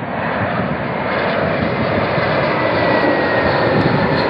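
Airbus A321-231's IAE V2500 turbofan engines on approach with landing gear down: a loud jet roar that grows louder as the airliner comes close, with a faint whine slowly falling in pitch midway.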